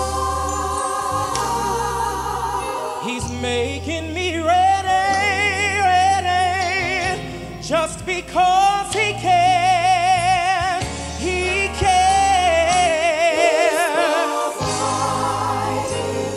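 Male gospel singer singing solo into a microphone, with wide vibrato on held notes and quick melismatic runs, over sustained low accompaniment chords.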